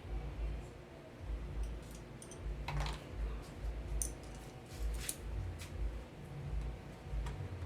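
Light clicks and small taps of hands at work on a washing machine's control electronics, a few sharper clicks standing out near the middle, over a low thud that recurs about every half second.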